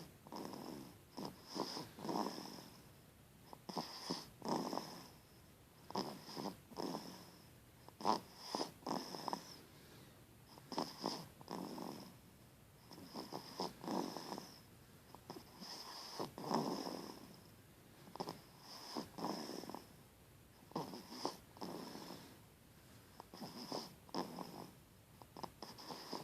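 Snoring in slow, regular breaths, one snore about every two and a half seconds, with a faint high whistle in the pauses between snores.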